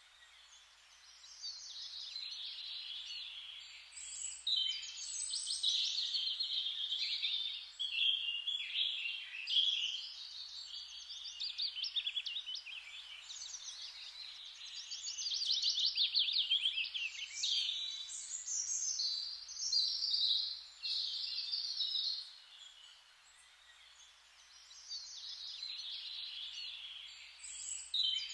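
Songbirds singing in a near-continuous string of high, rapid trills and chirping phrases, easing off for a few seconds late on before starting again.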